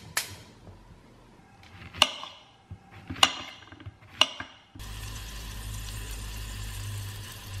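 A knife cutting a zucchini on a slate board: a few sharp knocks about a second apart. About five seconds in, a steady hiss with a low hum takes over as the pan of vegetables cooks on the gas stove.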